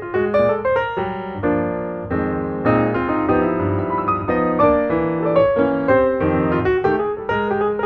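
Background piano music: a steady flow of melody notes over chords.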